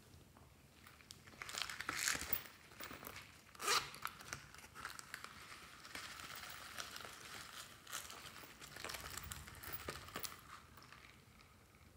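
A small packet of sequins being torn open and crinkled, with a couple of sharp tearing rustles about two and four seconds in, then steady crinkling as the sequins are shaken out into a hand.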